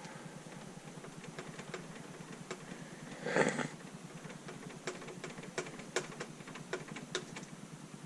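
Scattered light clicks and taps from hands handling hard plastic and metal parts, with one louder clatter about three and a half seconds in, over a steady low hum.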